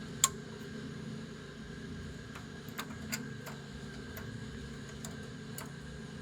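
A steady low hum with a sharp click just after the start, then a scattering of lighter clicks, about seven, over the next few seconds.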